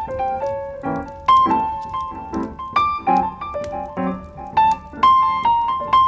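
Background piano music: a melody of single struck notes, several a second, each fading after it is played.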